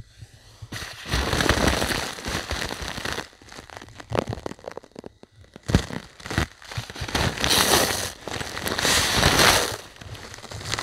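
Ice crackling and crunching in irregular bursts. The longest bursts come about a second in and again from about seven seconds to near the end, with short cracks in between.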